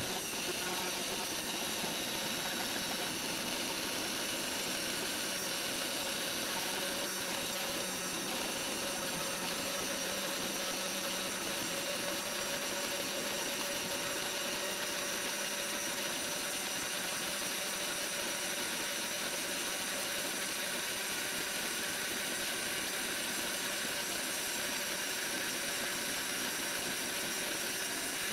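VEVOR S3018 Pro desktop CNC engraver running while it engraves wood: its spindle motor gives a steady, even whirring hiss with faint constant tones.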